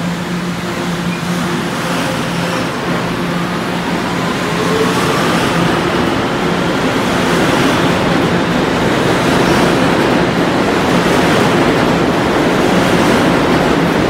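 R211 subway train pulling out of the station and accelerating past, its steady hum giving way to a rising traction-motor whine a few seconds in and a growing rumble of wheels on rail.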